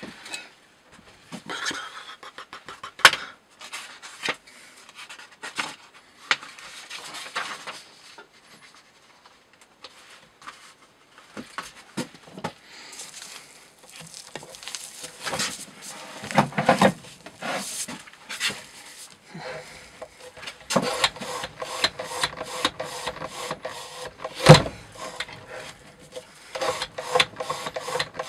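Knocks and clunks as a weight plate is handled and set onto a rope-cutting knife test rig. About twenty seconds in, a fast, even run of rubbing, squeaking strokes begins as the rig's carriage draws the rope across the knife edge.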